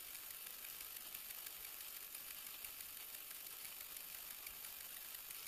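Dry esparto grass strands rustling and crackling faintly as they are plaited by hand, over a steady hiss.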